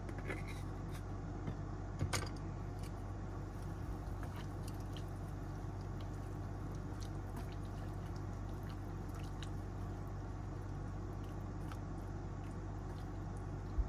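Wooden chopsticks stirring cabbage and bean sprouts in a small electric pot of simmering broth: soft wet squishing with scattered light clicks, the sharpest about two seconds in, over a steady simmer.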